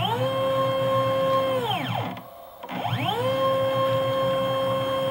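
Stepper motor turning a ball screw on a home-built CNC router axis: a whine that rises in pitch as the motor speeds up, holds a steady tone, then falls as it slows to a stop. After a short pause a second move starts about three seconds in, ramping up again to the same steady tone.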